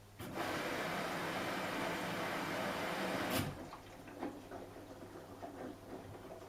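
Samsung Eco Bubble washing machine taking in water: a steady rush of water starts suddenly, then cuts off sharply after about three seconds as the inlet valve closes. Quieter irregular sloshing and patter from the drum follow.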